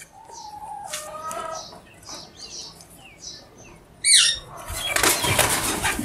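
Green parakeet chirping softly, then giving a quick burst of sharp squawks about four seconds in, followed by a loud fluttering rush as it flaps its wings hard.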